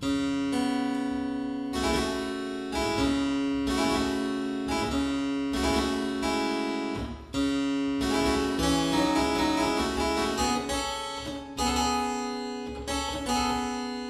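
Harpsichord being played: a slow run of plucked chords, a new one about every second, with a short break about seven seconds in.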